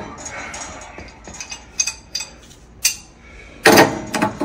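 Metal clicks and clanks of a pipe wrench being adjusted and fitted onto a water heater's brass pressure relief valve, with a louder knock near the end.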